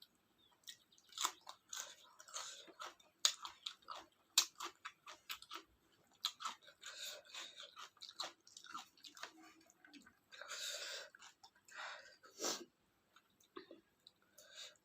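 Close-miked chewing and mouth sounds of someone eating a meal of rice and curry: irregular wet clicks and smacks, with a longer noisy bite or slurp about ten seconds in.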